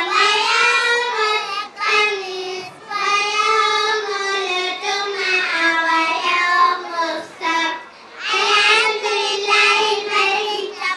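A group of young schoolgirls singing together into a handheld microphone, in short phrases with brief breaks between them.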